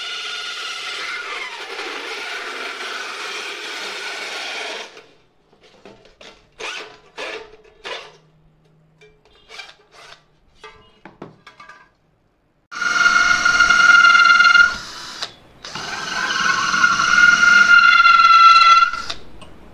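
Makute cordless drill spinning a small toothed cutting disc through a thin sheet-metal tin can: a steady whirring cut for about five seconds. Then a few seconds of light scrapes and clicks. The drill then makes two louder runs of high motor whine as the disc cuts into a wooden block.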